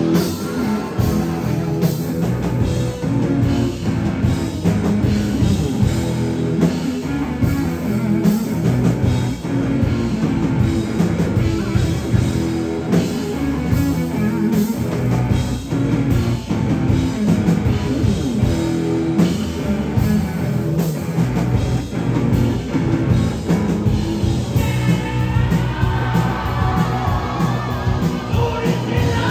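Live rock band playing a song, loud and steady, with a regular drum beat.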